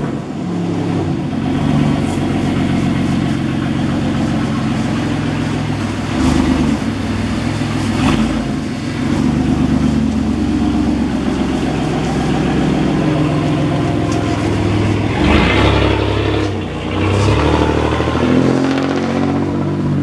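A car's engine running and being revved as the sedan is driven slowly away, its pitch rising and falling again and again.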